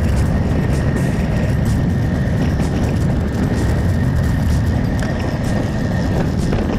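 Wind rushing and buffeting over a handlebar-mounted camera's microphone on a road bike moving at speed, loud and steady. A faint thin whine runs underneath and stops near the end.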